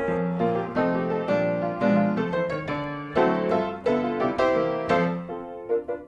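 Background piano music: a steady run of notes over lower chords.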